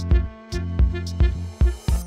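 Upbeat electronic background music with a steady drum-machine beat and sustained synth notes.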